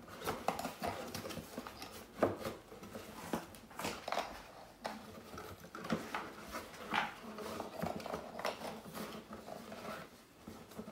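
Irregular clicks and knocks of the hard plastic parts of a car headrest sleep support being handled and fitted together, with some bumps against a cardboard box.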